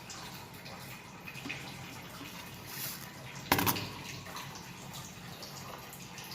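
Water running or dripping with a steady low hum underneath, and one sharp knock about three and a half seconds in.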